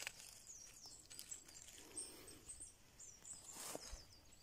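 Faint, high, thin chirps of small birds repeating over quiet forest ambience, with one rustle of a footstep in dry leaves and grass about three and a half seconds in.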